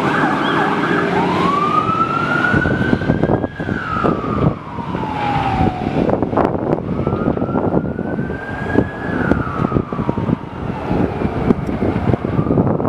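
Fire engine siren wailing in two slow cycles, each rising then falling in pitch, after a brief steady tone at the start. The truck's engine and road noise run underneath.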